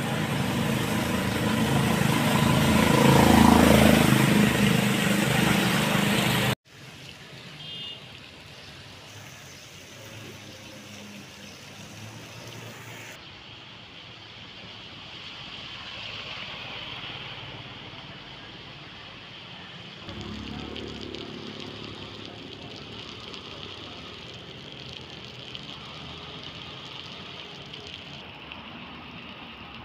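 Loud road noise from a vehicle driving along a rain-soaked street, cutting off abruptly about six seconds in. After that comes a much quieter steady hiss of traffic and water on the flooded road.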